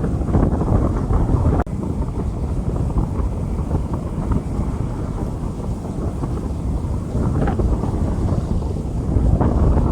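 Rain pouring on a street: a steady, dense rush under a heavy low rumble.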